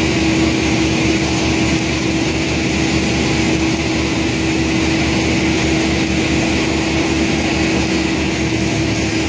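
Steady machinery drone with a constant hum that holds at an even level.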